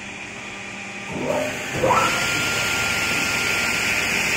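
MJ6132VC sliding-table panel saw's motor switched on, spinning up in two rising whines about a second in and near the middle, then running at speed with a steady high whine.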